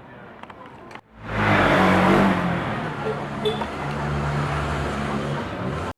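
A motor vehicle's engine running with a loud rush of noise, starting suddenly about a second in, its low hum stepping down in pitch partway through, and cutting off abruptly just before the end.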